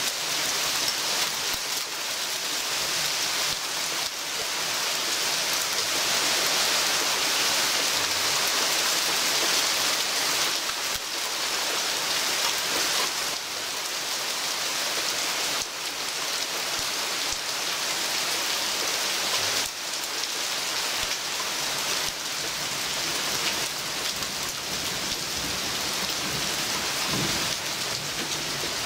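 Heavy thunderstorm downpour falling steadily through the hanging foliage of a weeping tree.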